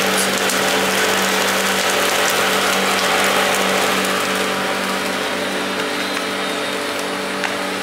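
Minced-meat kebabs sizzling over a charcoal grill, a crackling hiss, over a steady machine hum.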